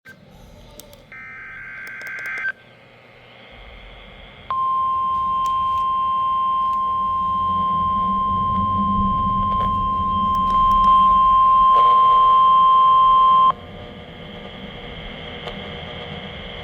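NOAA Weather Radio weekly test signal over radio hiss. A short warbling burst of SAME digital header data comes about a second in. About four seconds in, the steady 1050 Hz warning alarm tone starts and holds for about nine seconds before cutting off, leaving the receiver's hiss.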